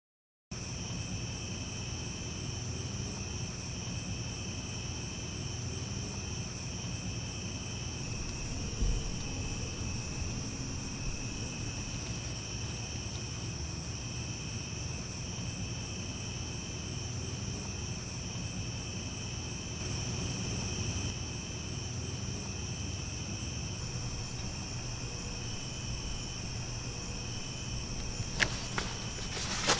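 Night insects chirping steadily in a continuous high chorus over a low background rumble, with a few sharp clicks near the end.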